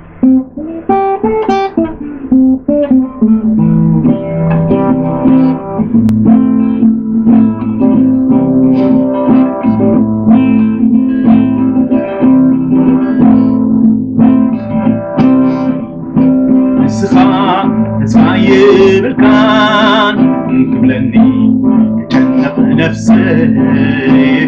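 Acoustic guitar being strummed and picked in a steady accompaniment, with a man's voice singing over it in the later part.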